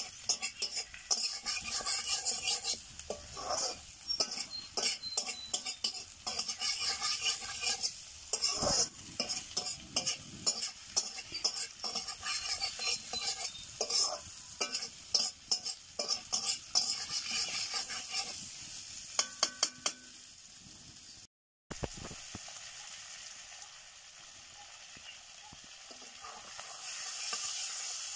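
Chicken pieces sizzling as they fry in a black iron kadai, with a spatula scraping and clacking against the pan as they are stirred. About two-thirds of the way in the stirring strokes mostly stop, leaving a steady sizzle that grows louder near the end.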